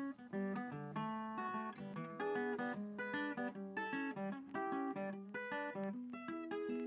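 Background music: acoustic guitar playing a quick plucked melody.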